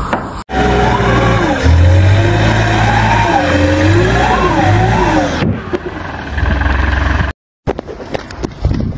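Car engine revving up and down repeatedly for about five seconds, with tire squeal, typical of a car spinning its wheels on snow or ice; the sound is then cut off abruptly, followed by a brief dropout and a different noisy clip.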